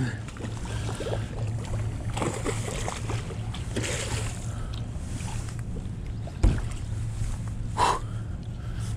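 A hooked striped bass splashing at the water's surface while it is landed beside a kayak, with handling noise and a sharp thump about six and a half seconds in, over a steady low rumble.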